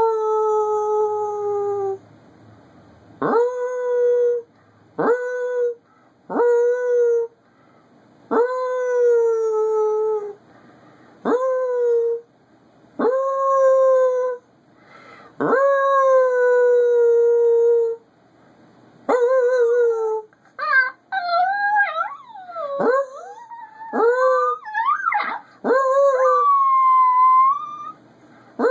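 Chihuahua howling: a series of long howls, each swooping up at the start and then held near one pitch. From about twenty seconds in the howls waver and climb higher, with quick swings in pitch and short yips.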